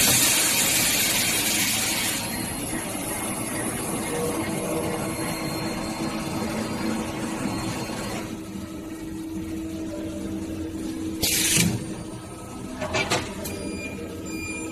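Aluminium intercooler core builder machine at work: a loud hiss of about two seconds at the start, then a steady mechanical running sound for several more seconds. A short hiss and a few sharp clicks come near the end, over a steady hum.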